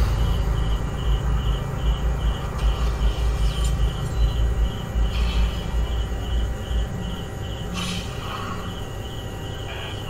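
Cricket-like insect chirping, an even pulse repeating about two to three times a second, over a low rumble that fades about seven seconds in.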